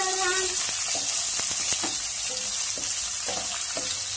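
Sliced onions frying in hot oil in a nonstick pan, with a steady sizzle. A wooden spatula stirs them, knocking and scraping against the pan several times.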